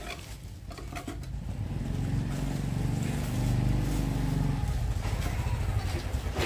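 A vehicle engine running, getting louder over the first few seconds and staying strong until it eases slightly near the end.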